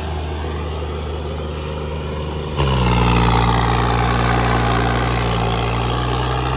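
Tractor diesel engine running at high, steady revs. About two and a half seconds in it becomes abruptly louder.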